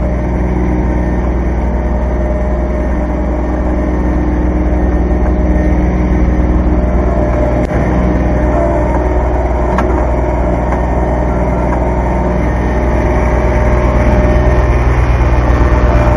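Kubota B2320 compact tractor's three-cylinder diesel engine running steadily while the loader works, getting a little louder near the end, with one brief knock about halfway through.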